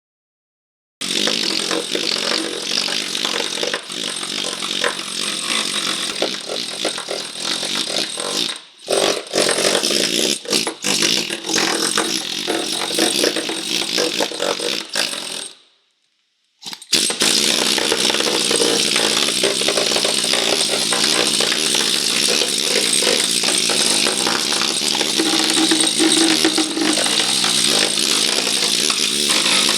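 Power grinder running steadily against car body metal during rust repair, with a brief dip about nine seconds in; it cuts out for under a second near the middle, then runs on.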